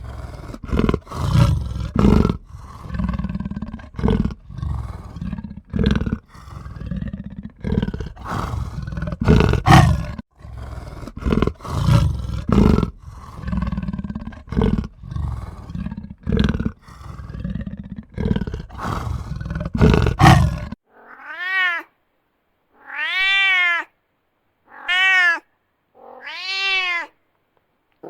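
Big cats growling and roaring in a dense, rough run for about twenty seconds. The sound then switches to four separate meow-like cat calls, each rising then falling in pitch, with short silences between.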